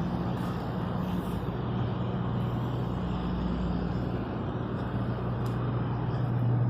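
Steady low machine hum over an even rushing background noise.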